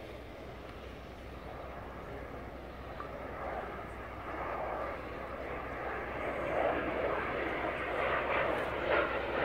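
Twin-engine aircraft approaching in flight, its engine noise growing steadily louder as it comes nearer.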